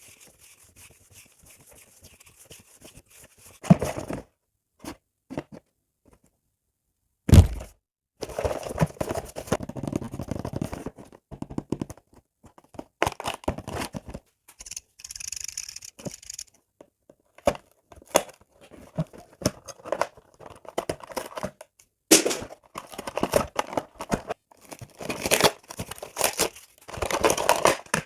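Crystal growing kit being unboxed by hand: packaging tearing and crinkling in irregular bursts, with a sharp thunk about seven seconds in as something is set down or knocked.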